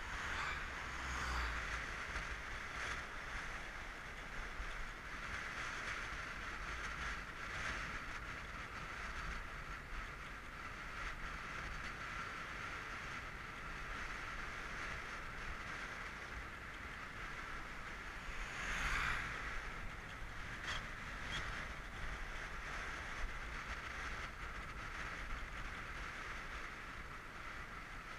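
Wind rushing over the microphone of a bicycle descending at speed, a steady hiss with a low rumble underneath. It swells louder about a second in and again about two-thirds of the way through.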